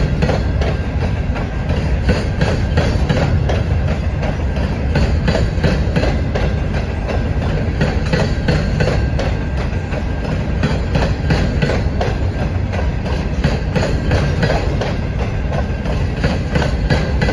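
Alaska Railroad freight train's open-top hopper cars rolling past: a steady low rumble with the repeated clatter of steel wheels over rail joints.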